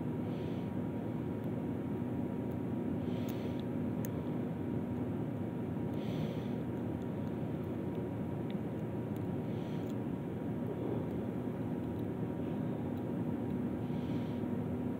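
Steady background hum and drone, with a soft breath every few seconds and a few faint clicks.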